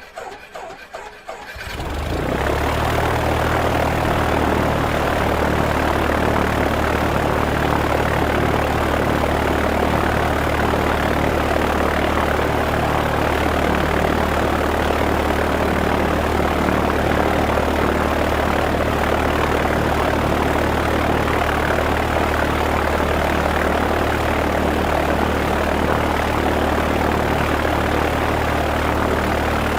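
Single-propeller Cessna piston engine being started: the starter cranks it in quick uneven pulses, the engine catches about two seconds in, and it settles into a steady idle with the propeller turning.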